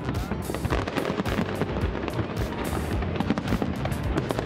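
Large aerial fireworks display going off in dense, continuous bangs and crackles, many per second over a steady low rumble, with music playing alongside.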